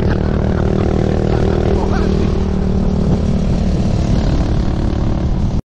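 Motorcycle engine running at a steady speed while riding, with wind rushing over the microphone.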